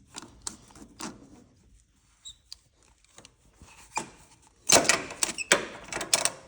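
Metal filter wrench clicking and rattling against a spin-on oil filter as the filter is worked loose, with a few light clicks at first and then a quick burst of clanking in the last couple of seconds.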